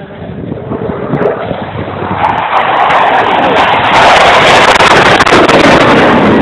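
Jet engine of a US Air Force Thunderbirds F-16 fighter flying a low pass and pulling up into a climb: its noise swells over the first few seconds into loud, steady jet noise.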